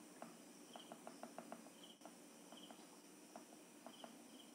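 Near silence, with faint rapid chirping and ticking in the background, coming in short clusters with higher paired chirps recurring every second or so.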